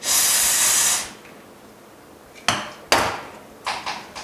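Aerosol can of cleaning liquid sprayed through a straw nozzle onto a phone's LCD: a hiss lasting about a second, used to soften leftover glue. Then, about two and a half seconds in, several short sharp scrapes and knocks as the glue is worked at on the screen.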